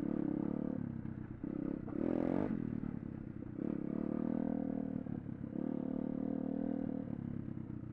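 A 200cc pit bike's single-cylinder engine running while being ridden, its revs stepping up and down several times with the throttle.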